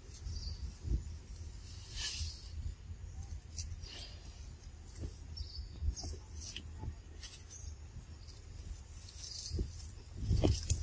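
Scattered rustles of leaves and branches with light clicks and taps, as young macaques climb about in a tree, over a low wind rumble on the microphone.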